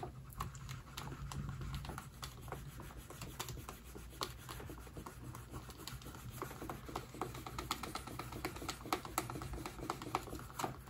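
Handheld burnisher rubbed quickly back and forth along the edge of elephant skin laminated to tooling leather, a dense run of small irregular clicks and scratches as the dressed edge is slicked smooth. A low steady hum runs underneath.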